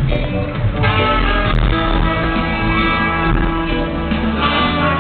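A live band playing a song on stage, recorded from the audience.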